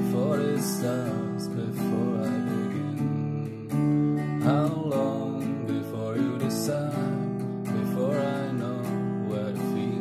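Acoustic guitar playing chords while a man sings along.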